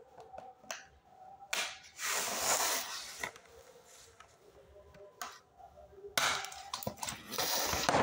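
Unboxing a toy blaster: sharp clicks and snips from scissors cutting the packaging, with bursts of rustling cardboard and plastic about a second and a half in and again near the end.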